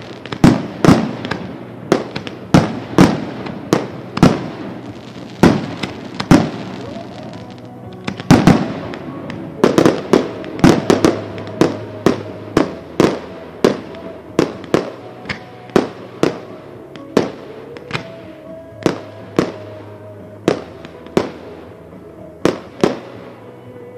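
Consumer (1.4G) fireworks going off in a continuous series of sharp bangs, about two a second, with a heavier bang about eight seconds in.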